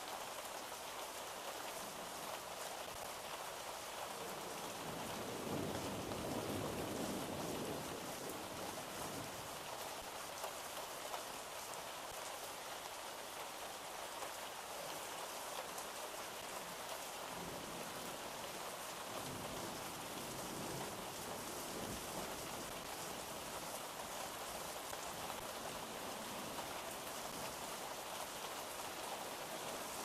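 Steady rain falling, an even hiss. A soft low rumble of thunder swells about five seconds in and again around the middle.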